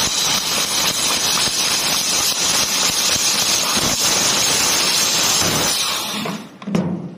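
Laser cutting machine cutting sheet metal: a loud, steady hiss of assist gas jetting from the cutting head's nozzle through the cut. It dies away shortly before the end, with one brief burst after.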